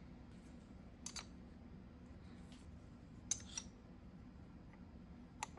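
A few faint, sharp clicks over a low steady hum: one about a second in, two in quick succession a little past three seconds, and one near the end.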